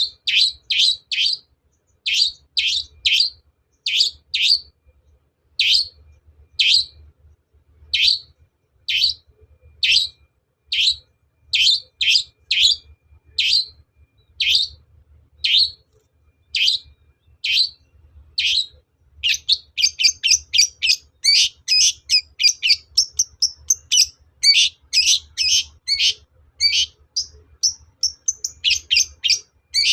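Long-tailed shrike (cendet) calling: sharp, harsh notes repeated singly and in short groups of two or three, about two a second. From about two-thirds through they quicken into a fast, dense chatter.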